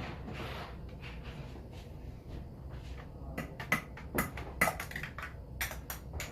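Small parts clicking and tapping as the OneUp EDC tool's top plug is fitted into a bicycle fork's steer tube: about a dozen sharp, irregular clicks, some with a short ring, starting about three seconds in after a stretch of faint low hum.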